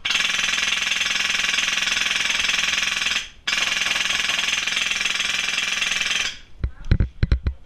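Airsoft rifle firing on full auto in two long bursts of about three seconds each, a fast, even rattle with a short break between them. A few heavy low thumps follow near the end.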